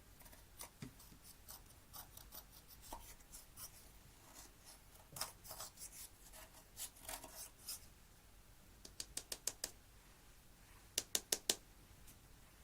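Slime being worked, giving crisp clicks and crackles, with a quick run of clicks about nine seconds in and four loud clicks near the end.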